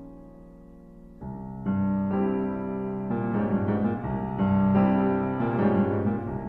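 Piano music: a quiet held note, then new chords come in about a second in and it grows fuller and louder.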